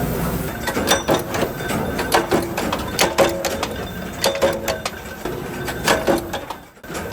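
Machinery clattering with quick, irregular clicks and metallic knocks, some briefly ringing. The sound cuts out for a moment near the end.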